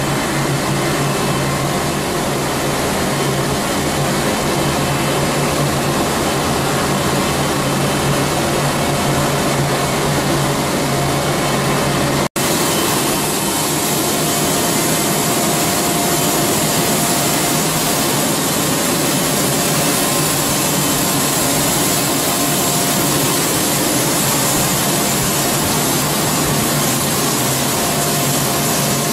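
Steady industrial noise of a copper-rod continuous casting machine running: an even roar with a few faint steady hums. It cuts out for an instant about twelve seconds in.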